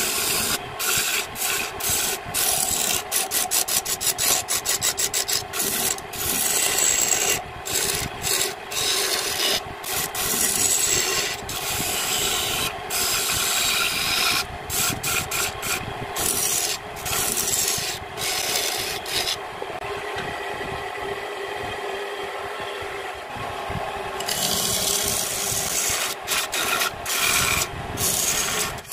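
A hand-held chisel cutting a wood blank spinning on a homemade wood lathe: a rasping scrape of the tool on the turning wood, broken by many short gaps as the tool lifts off, over the steady hum of the lathe. For about four seconds past the middle the cutting stops and only the lathe's hum is left.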